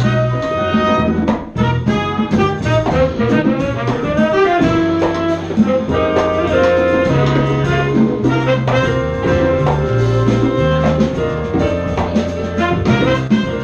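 Live jazz band playing: saxophone and trumpet lines over bass, piano, drums and percussion.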